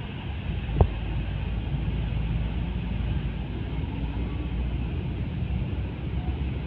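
Road traffic rumble dominated by a heavy box truck's diesel engine running as it creeps forward, with motorcycles and minibuses moving around it. A single sharp thump a little under a second in.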